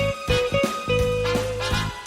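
Background music: an upbeat swing-style instrumental with a steady beat and clear melody notes.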